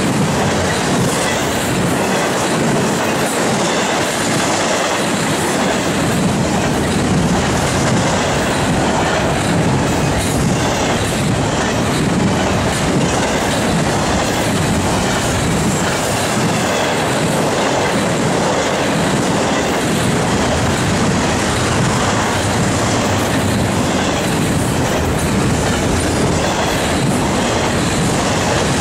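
Double-stack intermodal train's loaded well cars passing close by at speed: a steady, loud rumble and clatter of steel wheels on the rails.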